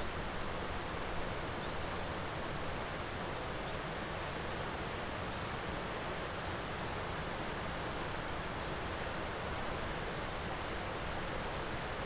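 Steady outdoor background noise: an even hiss with no distinct events.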